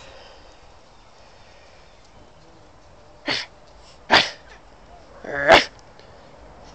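Puppy giving three short, sharp vocal bursts about a second apart, starting about three seconds in: the first two breathy like sneezes or huffs, the last a pitched bark.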